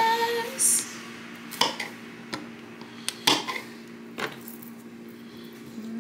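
A kitchen knife striking a cutting board in separate strokes about once a second, trimming the ends off green beans, over a steady low hum.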